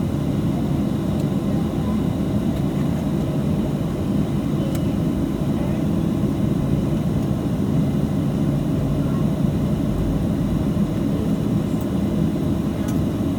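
Steady low rumble in the cabin of a Boeing 737-700 taxiing, its CFM56 jet engines at idle, with a couple of faint clicks.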